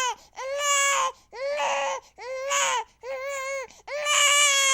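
A baby crying in a run of separate wails, about one a second, each arching up and falling off at the end; the last wail, starting near the end, is longer.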